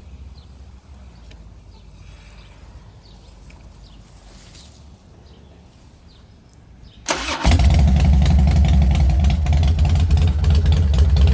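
A 2005 Harley-Davidson Dyna's Twin Cam 88 V-twin engine cranked by the electric starter from the handlebar button and catching about seven seconds in, then idling steadily; the starter circuit still works.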